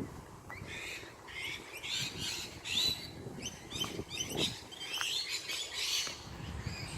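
Small songbirds chirping and twittering, many short high calls and quick pitch-sliding notes overlapping throughout.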